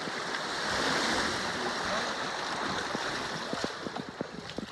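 Water rushing and splashing at a boat's stern, swelling about a second in and then fading away.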